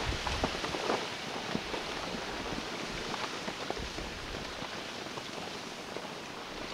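Steam venting from hot lava debris on a volcanic dome, a steady rushing hiss with scattered small ticks and crackles.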